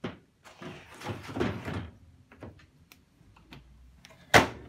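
Plastic scraping and knocking from handling in the condenser compartment at the base of a condenser tumble dryer, a few light clicks, then a sharp snap about four seconds in as the plastic plinth flap over the condenser compartment is shut.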